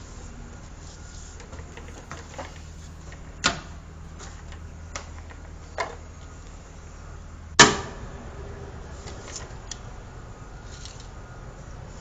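Scattered sharp knocks and clicks of pipe, fittings and tools being handled, the loudest about two-thirds of the way through, over a steady low hum.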